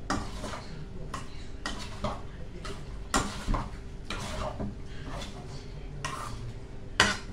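A utensil scraping and clinking against the inside of a metal saucepan while mixing, in uneven strokes about twice a second, with a sharper clank about three seconds in and again near the end.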